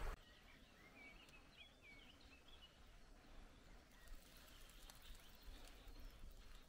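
Near silence, with a bird singing faintly in short chirps during the first few seconds and a few faint clicks.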